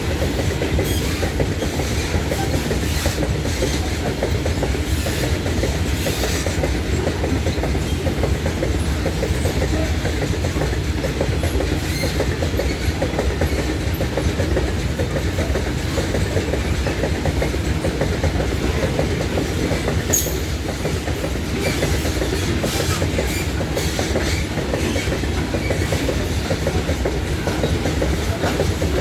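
Freight train's loaded gondola wagons rolling past steadily, their wheels clicking over rail joints over a continuous heavy rumble. A short high squeal comes about two-thirds through.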